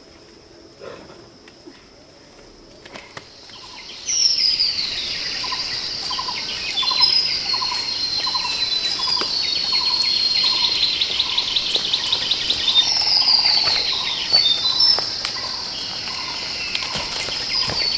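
Forest birds singing: high, falling whistled phrases and trills over a lower note repeated evenly about one and a half times a second, starting suddenly about four seconds in after a quiet stretch.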